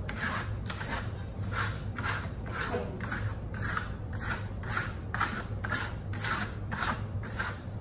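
Steel plastering trowel scraping across drying cement-grey Venetian plaster on a sample board in quick, regular strokes, about two a second, each a short rasp.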